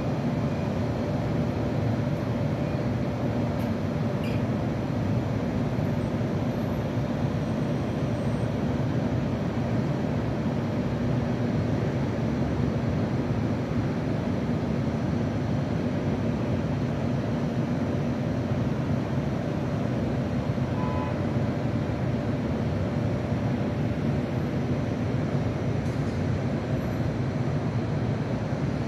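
Steady city hum heard from high above the street: a continuous rumble of distant traffic with a low, even hum running through it.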